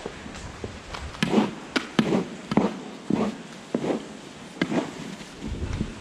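Boots stepping along a cow barn's alley and a long-handled tool scraping sawdust bedding on the stall beds, in uneven scuffing strokes about once or twice a second, with a few sharper clicks about a second or two in.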